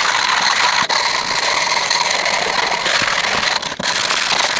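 Sandpaper on a hardwood block being worked against the edge of a cast iron machine table, a loud steady rasping hiss with a few brief dips near the end.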